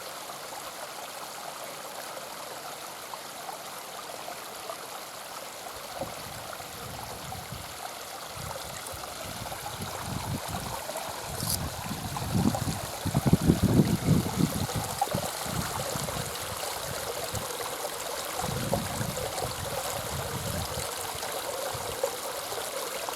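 Water from a stacked sandstone garden waterfall running and splashing steadily into a pond. Irregular low rumbles swell beneath it from a quarter of the way in and are loudest around the middle.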